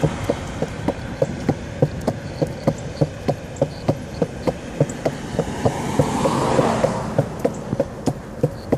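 Skateboard wheels rolling on a concrete sidewalk, with a steady, even clicking about three times a second; the rolling noise swells briefly about six seconds in.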